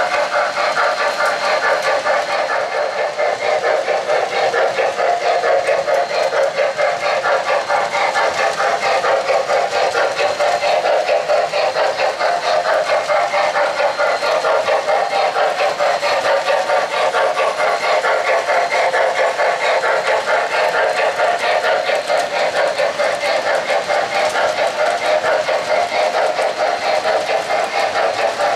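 O-gauge model train running: an N&W J-class steam locomotive model pulling coal hopper cars over three-rail track, a steady rolling rumble and clatter with a rapid, even pulsing.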